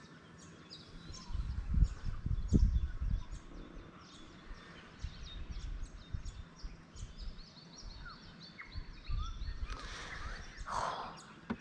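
Birds chirping and calling, with short high chirps throughout and a quick repeated trill about eight seconds in. Low thumps and rumbles about two to three seconds in.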